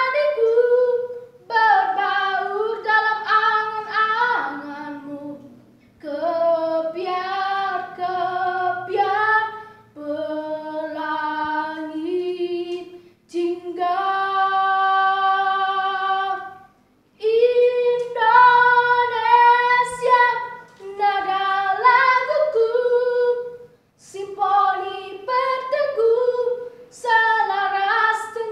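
A boy's unbroken voice singing a solo song unaccompanied, in phrases broken by short pauses for breath, with one long held note about halfway through.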